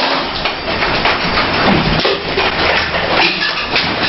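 An apartment shaking in a strong earthquake: continuous loud rattling and clattering of household objects and the building over a low rumble.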